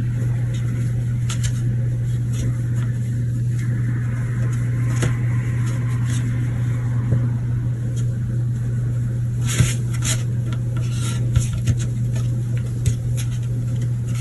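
A steady low mechanical hum, with scattered light taps and clicks over it.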